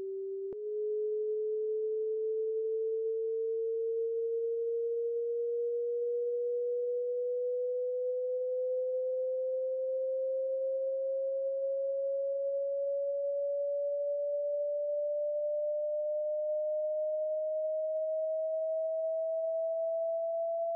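A single pure electronic tone rising slowly and evenly in pitch, with a faint click about half a second in.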